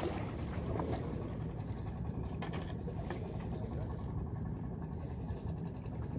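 Steady low outdoor rumble, with a few faint clicks of hands handling fishing gear.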